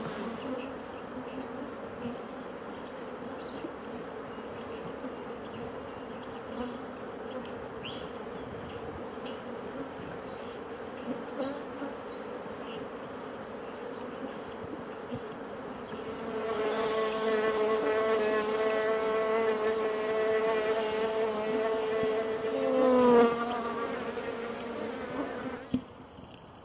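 A flying insect buzzing, faint at first, then close and loud for about ten seconds from past the middle. Its pitch dips briefly near the end, and then the buzzing cuts off suddenly.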